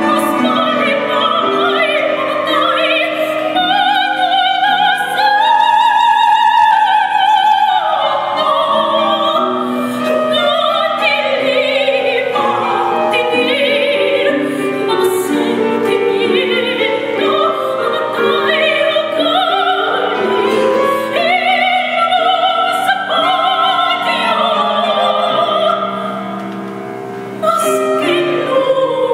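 A woman singing in classical operatic style with a wide vibrato, accompanied by grand piano. Her voice drops to a softer moment a couple of seconds before the end, then comes back in full.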